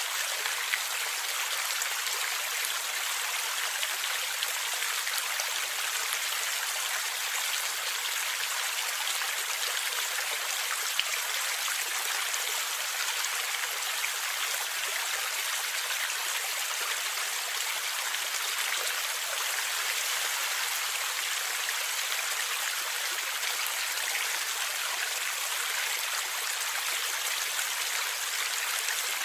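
Stream water flowing and gurgling steadily, mostly a light hiss with little low rumble, with an occasional small splash or drip standing out.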